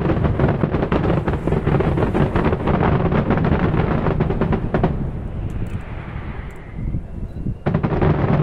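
Fireworks going off: a dense run of rapid crackling from many small bursts, which thins into a fading hiss about five seconds in. A loud bang breaks in near the end.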